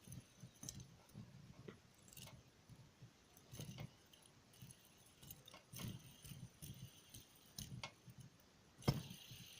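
Faint clicks, light rattles and soft knocks of a fidget spinner being handled and spun in the fingers, with one sharper click near the end.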